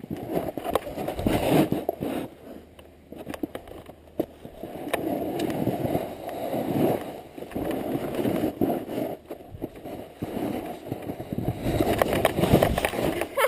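Snowboard sliding and scraping over the snow on a descent, the scrape swelling and fading every couple of seconds with the turns, with scattered clicks and crackles.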